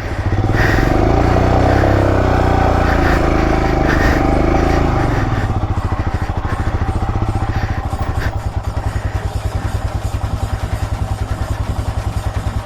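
Motorcycle engine revving under load for about the first five seconds, its pitch rising and falling, then settling to an even, pulsing idle.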